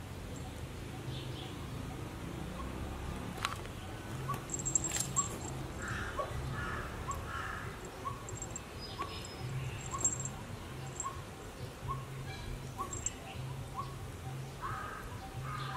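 Birds calling outdoors: a regular series of short rising chirps about twice a second, with a few louder calls in a group of three about six seconds in and again near the end. Faint high twitters are mixed in.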